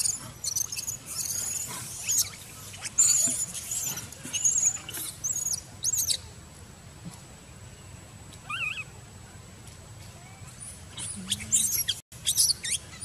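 High-pitched squeaks and short squeals from long-tailed macaques, many in quick succession in the first half and again near the end.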